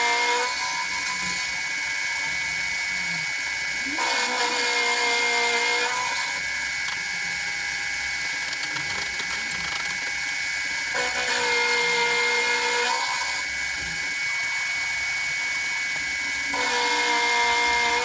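Milling machine spindle running steadily with a high whine while its cutter machines flats on steel round bar. The cutter bites in four times, each for about two seconds, with a louder ringing tone.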